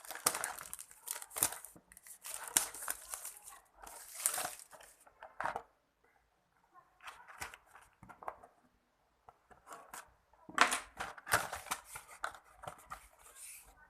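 Product packaging being opened by hand: rustling, crinkling and tearing in irregular bursts, pausing for a few seconds in the middle before a louder spell near the end.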